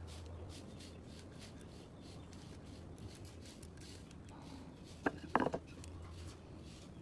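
Light scraping and tapping of hand work on wood, with a short cluster of sharper knocks about five seconds in, over a low steady hum.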